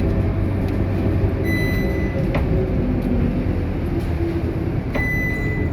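Inside a Scania K230UB city bus: the steady rumble of its diesel engine and running noise fills the cabin. Two short high-pitched beeps sound, about a second and a half in and again near the end.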